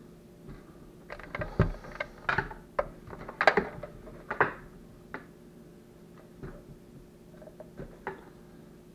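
Irregular clicks and knocks of hard plastic as a cordless chainsaw's red plastic charger is picked up and turned over in the hands. The clicks come in a quick cluster over the first few seconds, then a few scattered ones.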